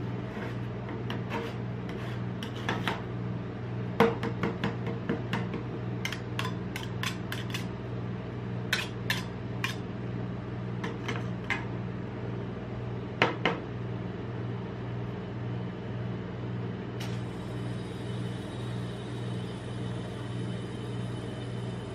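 Steel spatulas tapping, chopping and scraping on a rolled-ice-cream cold plate as they work soft chocolate dessert, in irregular sharp clicks with a steady low hum underneath. The tapping stops about two-thirds of the way through, leaving the hum and a faint hiss.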